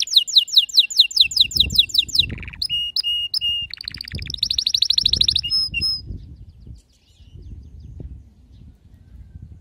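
Domestic canary singing: rapid trills of repeated high notes that change to a new trill type every second or two, and the song stops about six seconds in. A low rumble runs underneath.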